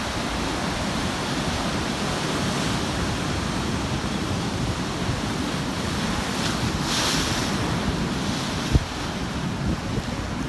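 Ocean surf breaking and washing in, a steady rushing hiss that swells about seven seconds in, with wind buffeting the microphone. A brief low thump near the nine-second mark.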